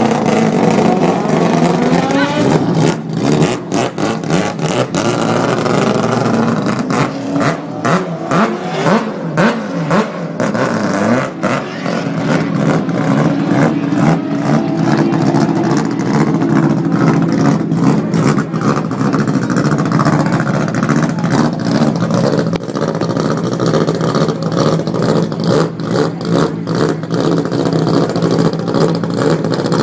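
Mazda RX-7 with a four-rotor rotary engine revving hard, its pitch sweeping up and down again and again, with many sharp cracks through it. It settles into a steadier run for several seconds in the middle before the revving picks up again.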